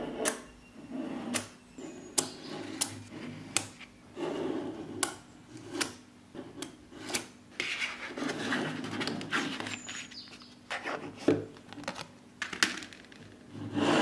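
Small neodymium magnet balls clicking and snapping together as bars of spheres are pressed into a panel, with many sharp clicks between stretches of rubbing and rolling noise as the balls slide over the table. A longer, louder stretch of scraping comes at the very end.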